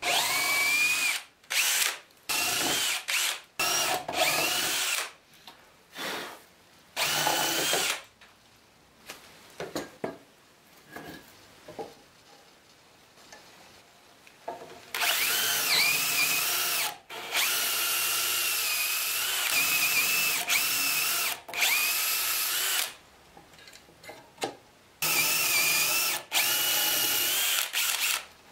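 DeWalt cordless drill boring dowel holes through the steel bushings of an aluminium dowelling jig into the edge of a pine board. It starts and stops in several short runs, then after a quieter stretch with a few clicks of handling it makes a long run of several seconds with its motor pitch rising and falling, and one more run near the end.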